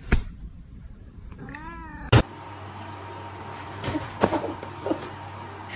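A cat meowing once, a drawn-out call that rises and falls in pitch, about a second and a half in, with a few sharp clicks and knocks around it.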